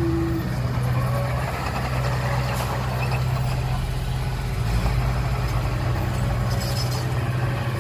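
A heavy earthmoving machine's diesel engine running steadily at an even low pitch. The low rumble deepens about five seconds in.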